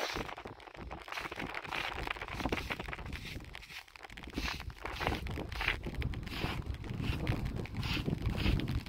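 Footsteps on dry, stony soil in a steady series of steps, with wind rumbling on the microphone.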